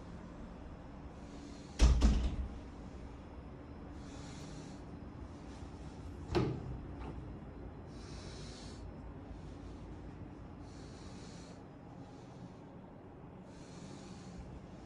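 Two door clunks, the louder with a deep thud about two seconds in and a lighter one about six seconds in, as an interior storeroom door is opened. Between them there are quiet breaths every couple of seconds.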